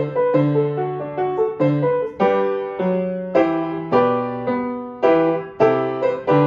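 Small upright piano played solo: a slow, gentle piece of chords over bass notes, about two struck notes or chords a second, each fading away before the next.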